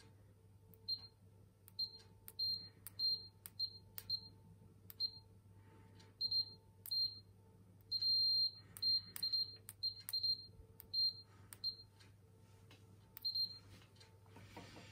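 Keysight 34461A bench multimeter's continuity beeper giving about twenty short high beeps at uneven spacing, each time the test probe tips are tapped together, with a small click of metal on metal at each touch. About eight seconds in the tips are held together and the beep sounds for about half a second. A brief rustle near the end as a probe is set down.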